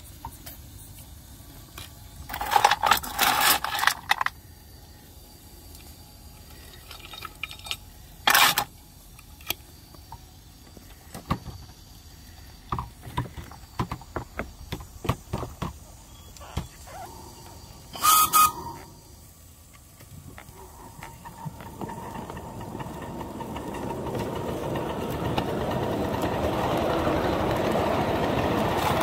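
5-inch gauge live steam locomotive: three short loud bursts of steam hiss, one carrying a whistle tone, with small clicks between. Then a steady noise builds as the train gets under way along the track.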